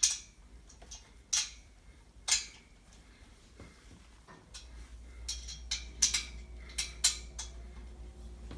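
Small metal Allen wrench clinking against a bolt head and the steel rack frame as the bolts are tightened: a few separate sharp clinks, then a quicker run of them in the second half.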